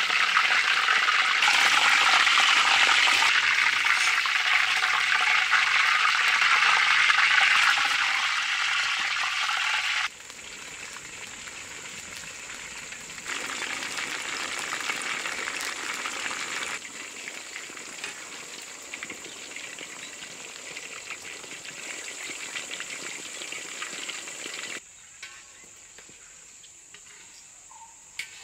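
Chicken pieces deep-frying in a large aluminium wok of hot oil: a steady sizzle, loud for the first third, then softer. From then on a steady high insect trill, likely crickets, runs underneath, and near the end the sizzle drops away to a quiet background with the insects.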